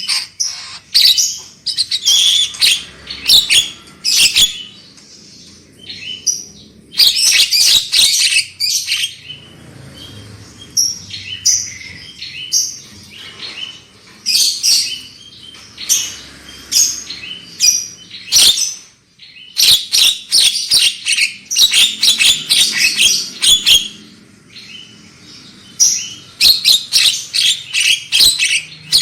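Javan myna (jalak kebo) singing: loud, fast phrases of chirps and whistled notes, each lasting a second or more, broken by short pauses.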